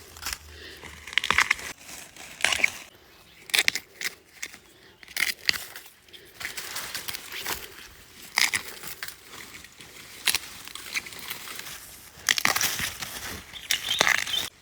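Wild bamboo shoots snapped off by hand, a string of crisp cracking snaps at irregular intervals among rustling stalks and leaves.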